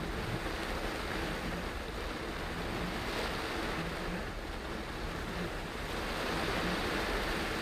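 Steady rush of heavy rain on a moving car and of its tyres spraying through water on the wet road, heard from inside the car.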